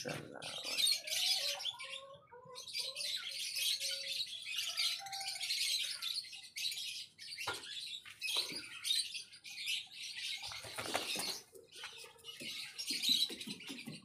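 Many small birds chirping and twittering continuously in high-pitched notes. Short, lower clucking notes from chickens come over them in the first few seconds, and a rooster's wing-flapping makes a brief rustle partway through.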